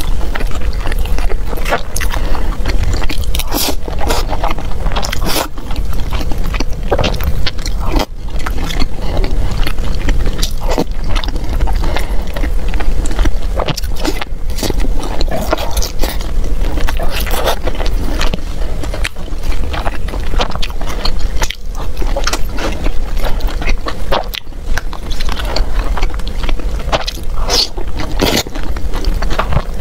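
Loud, continuous chewing of rice and sauced meat, with many short wet clicks and smacks, and a metal spoon scraping a plastic food container.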